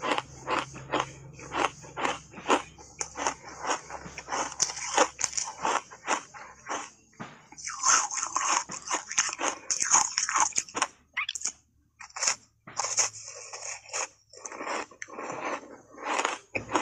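Refrozen ice chunks coated in matcha powder being bitten and chewed close to a lapel mic: a quick run of sharp crunches, two to three a second. The crunching is loudest from about eight to eleven seconds in, with short pauses around twelve and fourteen seconds.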